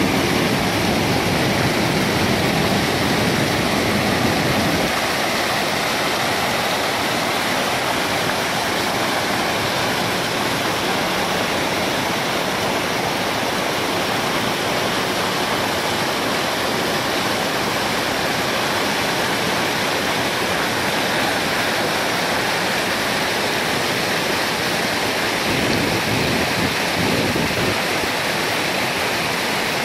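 Floodwater pouring over the concrete steps of a dam spillway: a steady, loud rush of falling and churning water. The deep rumble lessens about five seconds in.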